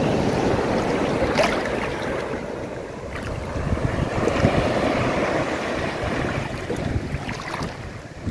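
Sea surf breaking and washing, with wind buffeting the microphone; the rush swells a little about halfway through.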